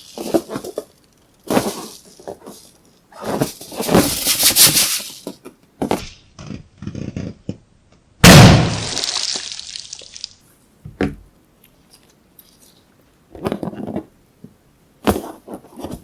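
Slime being squeezed and worked by hand in short squishing, crackling bursts. One sudden loud burst about eight seconds in trails off for a couple of seconds.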